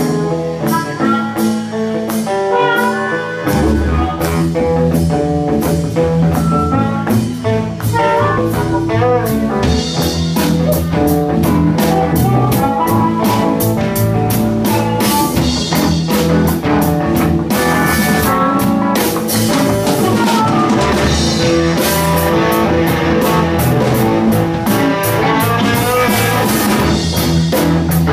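Live electric blues band playing: electric guitars and drum kit, with harmonica, in a steady groove. The deep bass end comes in about three and a half seconds in.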